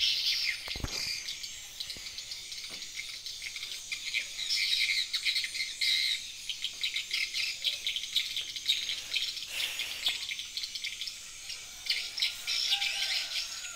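Steady high-pitched chorus of insects, with birds chirping over it. A single low thump about a second in.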